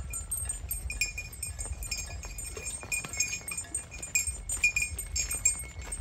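Neck bells on a herd of walking water buffalo and cattle, ringing and clinking in short, irregular notes as the animals move.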